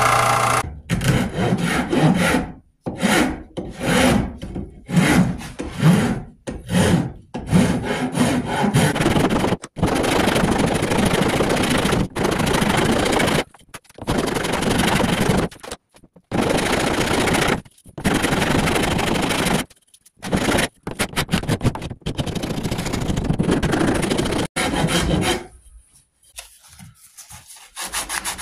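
Steel flat file rasping across an oak bow handle held in a vise. The strokes are short and quick at first, then longer, each about two seconds with brief pauses between. Near the end the filing stops and only faint rubbing is left.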